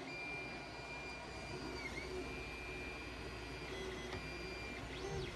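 Creality Ender 3 and Voxelab Aquila S2 3D printers running at the start of a test print. Their stepper motors give a steady high whine that dips and sweeps up and down in pitch as the axes change speed, over a steady fan hum.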